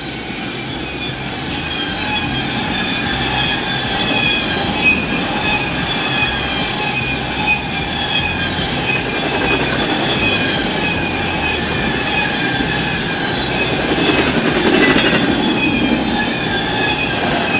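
Freight train rolling along the track, its steel wheels squealing on the rails in a string of repeated high squeals over a steady rumble.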